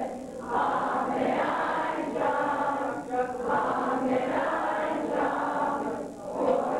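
A group of young people singing together in unison, in phrases with short pauses between them.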